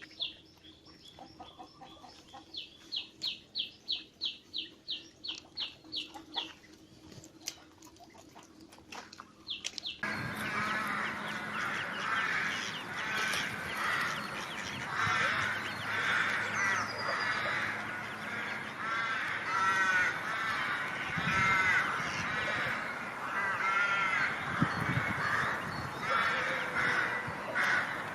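Ducks calling. For the first ten seconds it is sparse, with a quick run of about a dozen short, high calls. Then, suddenly, a flock starts a dense, continuous chorus of overlapping quacks and calls.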